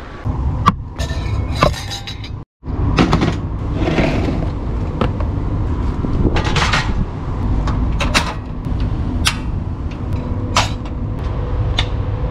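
Clicks, knocks and clatter from a portable gas camping stove and its plastic carry case being set out and handled on a truck's metal step, with a pot set on top. A steady low rumble runs underneath.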